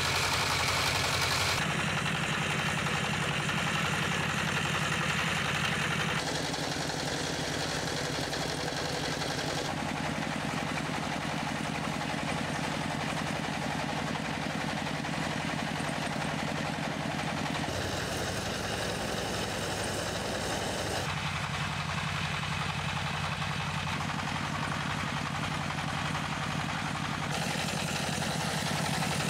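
Converted tractor engine driving a belt-driven puffed-corn extruder, running steadily with a fast, even chugging.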